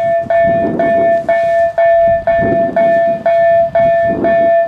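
Level crossing warning bell ringing, one steady pitched tone restruck about twice a second, signalling that a train is approaching.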